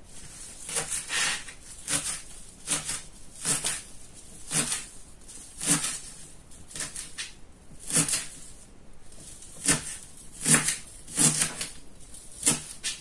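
Kitchen knife chopping fresh dill and parsley on a plastic cutting board: a string of irregular chops, about one or two a second.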